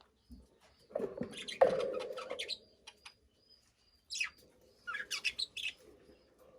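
Budgerigar chirping in quick clusters of high chirps, one bout about a second in and another about four seconds in, with short pauses between.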